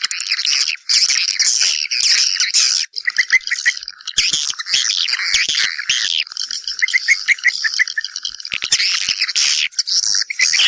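Swiftlets twittering without pause, many high chirps and buzzy calls overlapping, with short runs of rapid clicks a few times. It is the swiftlet call used to draw the birds back to nest.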